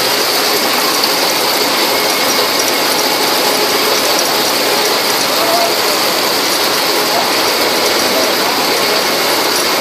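Cable-making line machinery running, a steady, dense mechanical clatter and whir without letup.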